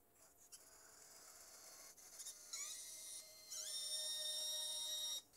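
Hobby servos of a large 3D-printed RC excavator whining as the arm lifts a load of sand and dumps it. The high-pitched whine rises in pitch twice around the middle, holds steady, then cuts off suddenly near the end.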